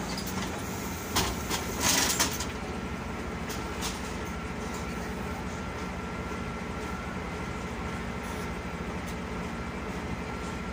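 Solaris Urbino 12 IV city bus's engine idling steadily while standing at a stop, heard from inside the passenger cabin. A short cluster of knocks and a brief hiss come about a second in.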